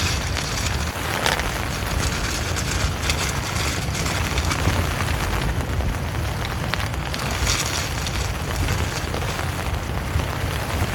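Strong gusty wind buffeting the microphone: a continuous low rumble with rising and falling hiss as the gusts come and go.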